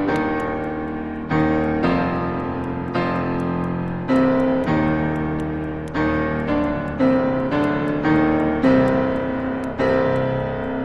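Electronic keyboard playing an instrumental tune on an electric-piano voice, notes and chords struck about once a second, each ringing and fading, over a faint ticking beat.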